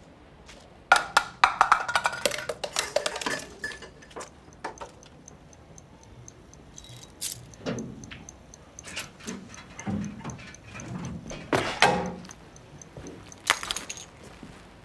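Clattering and knocking in irregular bursts, loudest from about a second in to about four seconds, with more scattered knocks later. A faint, fast, high ticking runs behind them.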